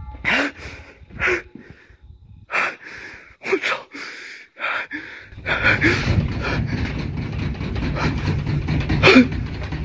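A person breathing in short, sharp puffs and gasps, about eight in the first five seconds. From about halfway a steady low rumble joins in, and one more loud gasp comes near the end.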